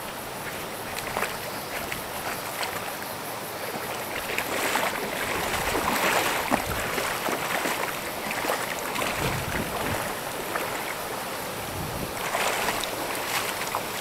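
Shallow stream water running and splashing over a flat rock bed, with many small splashes, louder in the middle and again near the end.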